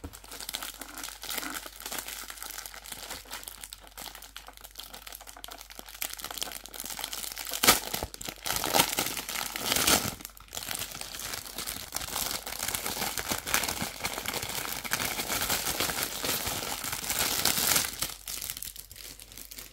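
Thin clear plastic bag crinkling and rustling as hands pull it off a silicone suction plate, with a few sharper, louder crackles partway through.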